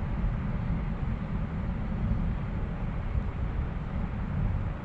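Wind buffeting the microphone on the open deck of a moving ship: a steady, unpitched low rumble.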